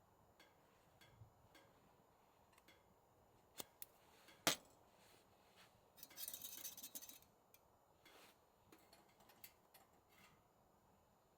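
Quiet handling of small objects: scattered light clicks, one sharp click about four and a half seconds in, and a brief hissing rustle a little later.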